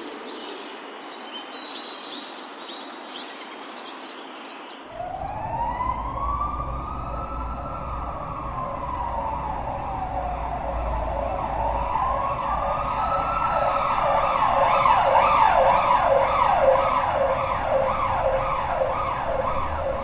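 Emergency vehicle siren coming in about five seconds in, growing louder as it approaches: two slow rising and falling wails, then a fast repeated yelp, over a low vehicle rumble. Before it there is faint high chirping.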